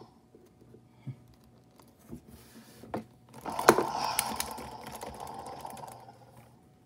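Plastic clicks from the Sound Strike Baryonyx Grim toy as its head is thrashed about. A little past halfway a sharp click sets off a recorded roar from the toy's sound box, which fades over about three seconds.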